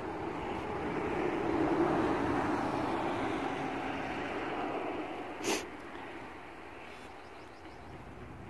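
A vehicle passing on the road: its noise swells over the first couple of seconds, then fades slowly away. A single short click comes about halfway through.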